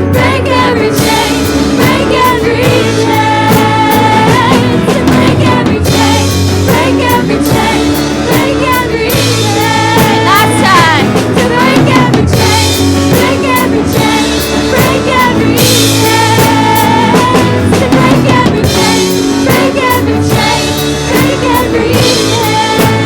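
Live rock-style band music with a full drum kit of kick, snare and rimshots.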